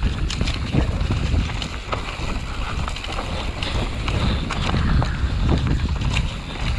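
Wind buffeting the microphone as a low, steady rumble, with scattered small clicks and knocks through it.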